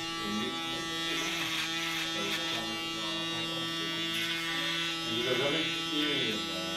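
Electric hair clipper running with a steady buzz, with faint voices and background music beneath it.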